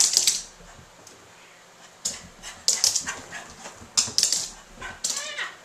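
A King Charles/Cocker Spaniel mix's claws clicking and scrabbling on a hardwood floor as she dashes about, in quick clusters of sharp clicks. A short whine near the end.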